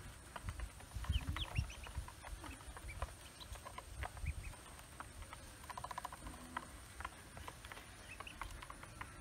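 Newly hatched ducklings peeping, many short high calls overlapping in quick succession, with soft thumps and scuffling as they move about in a plastic basin.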